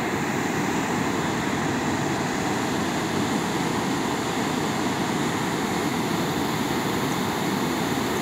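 Muddy floodwater rushing steadily over and around a broken concrete low-water bridge on a swollen creek.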